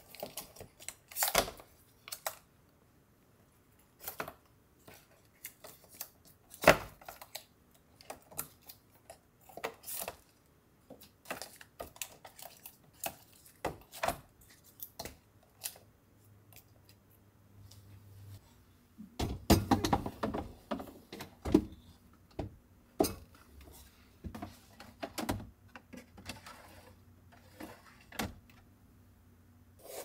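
Storage containers and food items clicking and knocking as they are handled and set down on refrigerator shelves: scattered single taps, with a busier run of clatter about two-thirds of the way through.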